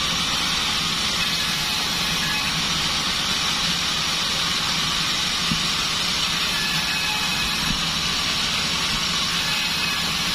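Large sawmill bandsaw running steadily, a constant machine hum with a hiss over it.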